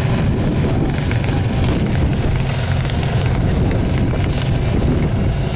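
Demolition derby car engines running loud and rough, a dense rumbling drone that stays steady throughout.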